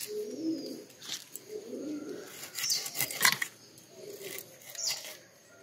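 Scales being scraped off a foli (bronze featherback) fish against an upright blade in about five short sharp strokes, the loudest a little after three seconds in. A bird calls low and repeatedly in the background.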